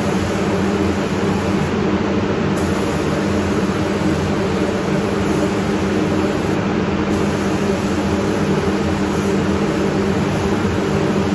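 Steady air-driven hiss and hum of a gravity-feed paint spray gun laying red colour coat over a primed fender, together with the paint booth's ventilation running.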